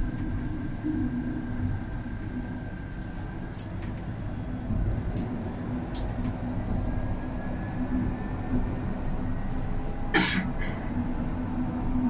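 Alstom Citadis tram rolling along its track, heard from inside: a steady low running rumble with a faint electric motor whine that rises as it picks up speed in the second half. A few light ticks and one short, sharp, bright burst of noise about ten seconds in.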